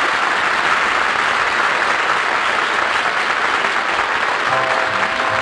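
Studio audience applauding steadily. A few notes of music come in near the end.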